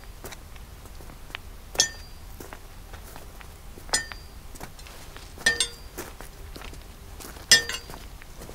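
A long thin stick knocking against a steel railway rail, about five sharp metallic clinks roughly two seconds apart, each ringing briefly.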